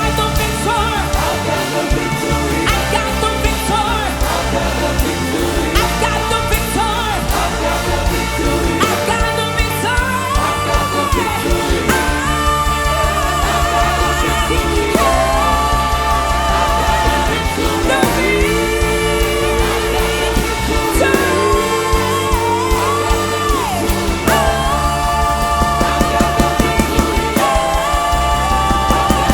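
Music with a singing voice over a steady bass and beat, a sung melody gliding between held notes.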